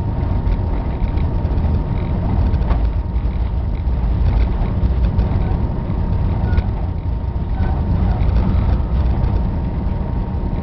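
Diesel-electric locomotive running steadily while shoving a boxcar, a low, even rumble heard from inside the cab, with a thin steady tone running through it.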